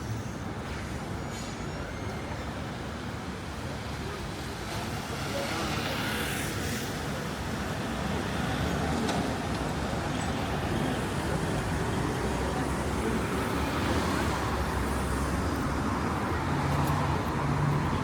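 City street ambience: motor traffic running past with people's voices mixed in. The engine noise grows louder from about five seconds in.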